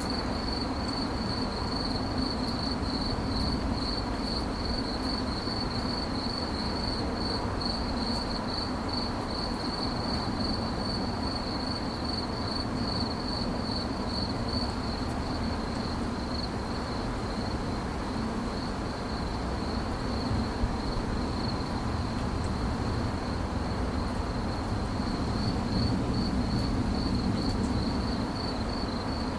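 A cricket singing a continuous trill of rapid pulses at one steady high pitch, over a low background rumble.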